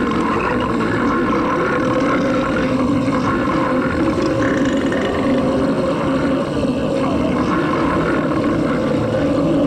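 A cartoon character's long, loud drawn-out vocal sound, held steady on one pitch without a break.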